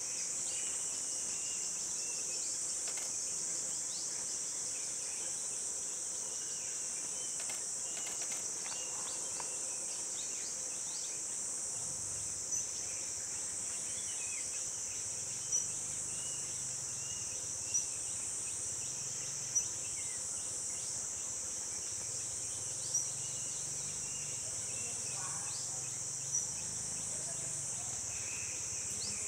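Steady, high-pitched drone of a forest insect chorus. From about halfway through, a short sharp chirp cuts through every few seconds, and there are faint scattered calls in between.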